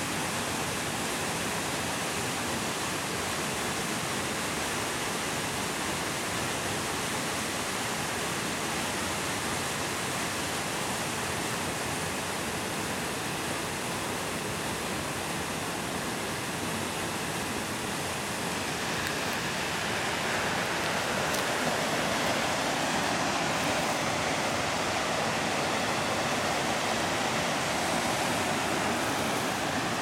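A waterfall's steady rush of falling water, growing a little louder about two-thirds of the way through.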